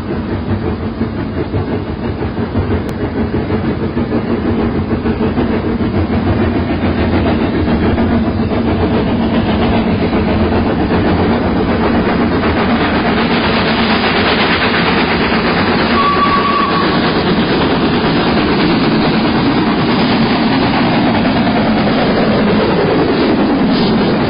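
Steam-hauled train on the line, its rumble growing steadily louder as it nears and then holding. A short high note sounds about two-thirds of the way in, and a tone slides downward near the end.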